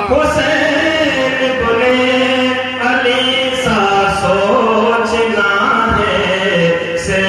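A man's voice chanting a naat, an Urdu devotional poem, into a microphone, drawing out long wavering notes in phrases, with short breaks about three seconds in and near the end.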